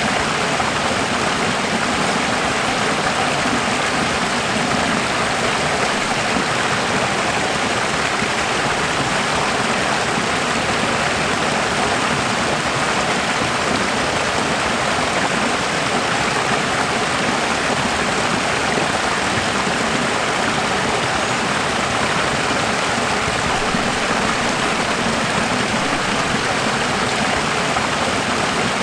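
Running water, a steady even rush like a stream or small waterfall, with no change in level.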